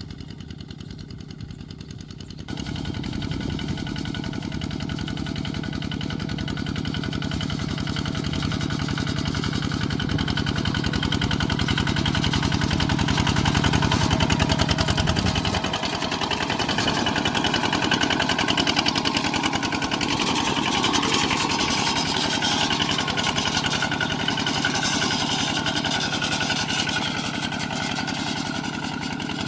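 Kubota ZT140 single-cylinder diesel engine on a two-wheel walking tractor, running steadily with an even, fast firing beat as the tractor's cage wheels work through a flooded rice paddy. It is fainter for the first couple of seconds, then closer and louder.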